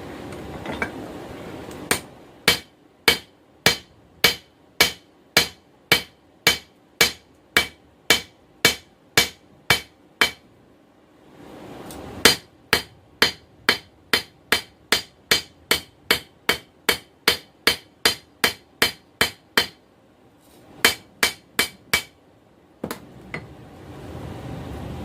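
Hand forging hammer striking a knife blank on an anvil, drawing out a skinner blade. Evenly spaced ringing blows come about two a second in two long runs with a short pause between them, then a few more blows near the end.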